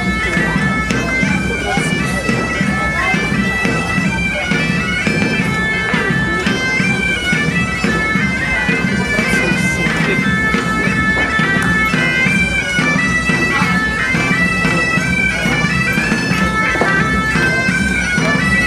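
Bagpipe music: a melody of held, stepping notes played over a steady low drone.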